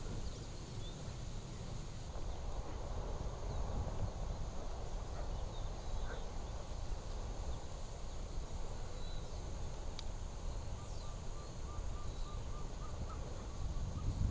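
Outdoor ambience: a steady low rumble with a hiss over it, faint bird chirps, and near the end a short run of about eight evenly spaced chirping notes.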